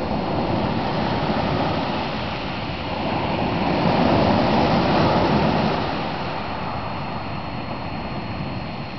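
Small sea waves breaking and washing up a pebble beach, one swell building to its loudest about four seconds in and then easing off.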